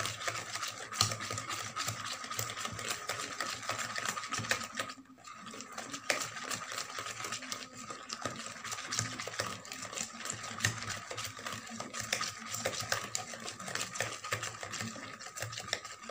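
Wire whisk beating eggs and sugar by hand in a plastic bowl: a fast, continuous clicking and scraping of the wires against the bowl, with a brief pause about five seconds in.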